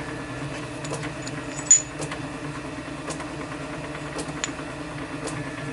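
Steady low mechanical hum in the room, with a few light clicks from a small painted metal part being handled in the fingers. One sharper click comes just under two seconds in.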